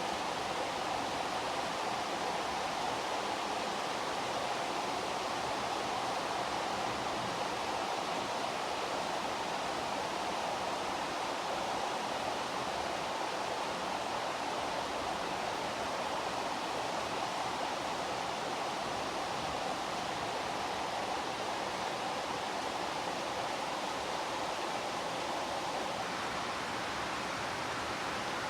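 Steady, heavy rain falling, an even hiss without thunder.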